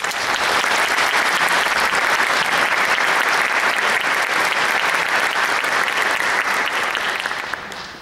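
Concert audience applauding, a dense, steady clapping that dies away near the end.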